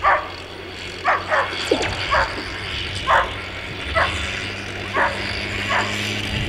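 A dog barking repeatedly, about one bark a second, with a quick double bark early on, over a steady low hum.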